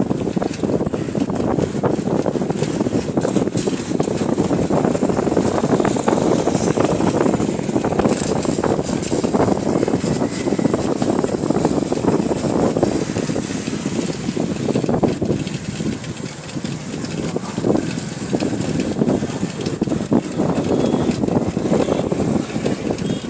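Wind buffeting the microphone and road noise from a bicycle being ridden along a street, a steady rushing with a faint high steady whine above it.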